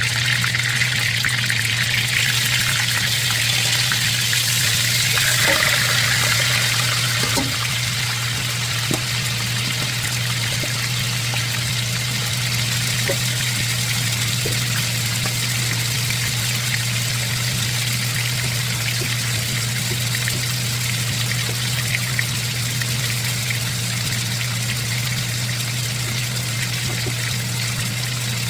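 Chicken pieces searing in hot oil in a pan, a steady sizzle that is a little louder for the first several seconds and then settles, over a steady low hum.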